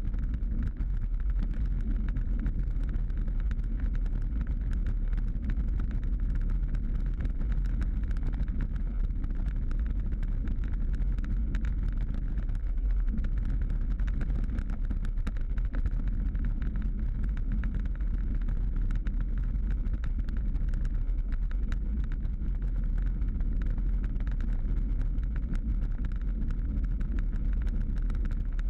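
Bicycle riding on rough, cracked asphalt, heard from a bike-mounted camera: a steady low rumble of wind and tyre noise, with many small clicks and rattles from the bike and mount over the broken surface.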